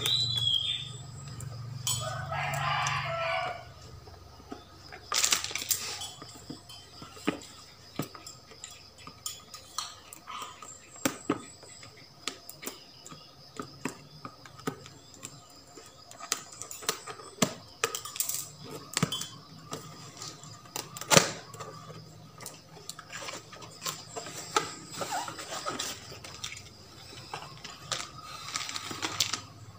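Scissors cutting the seal tape of a cardboard camera box, then hands opening its flaps and handling the packaging: an irregular run of clicks, taps and rustles. A rooster crows in the background about two seconds in.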